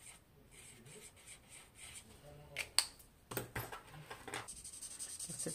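Sharp plastic clicks of a watercolour marker being taken up and uncapped, then the marker's tip rubbing and scratching across paper in quick strokes.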